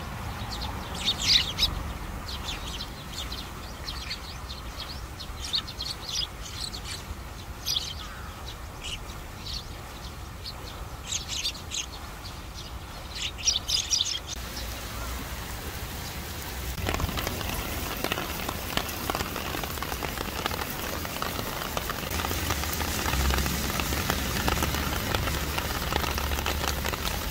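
Eurasian tree sparrows chirping in many short, quick calls for about the first fourteen seconds. After a short lull, a sudden heavy rain starts, and its steady hiss builds and holds to the end.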